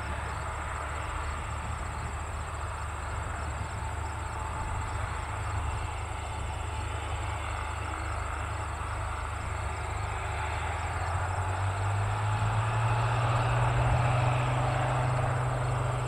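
Beechcraft A36 Bonanza's six-cylinder piston engine and propeller running at low power as the plane taxis onto the runway. About twelve seconds in, the engine note rises and grows louder as power comes up for the takeoff roll.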